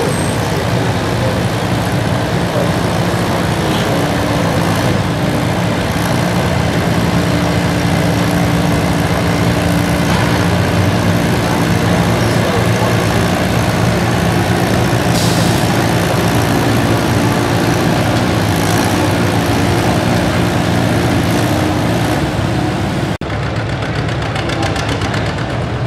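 Antique farm tractor engine running steadily under load, pulling a weight-transfer sled. Near the end the sound breaks off suddenly and another steady tractor engine sound follows.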